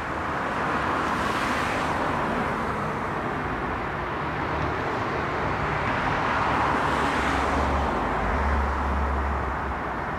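Steady road traffic noise with two vehicles passing, the hiss swelling about a second in and again around seven seconds.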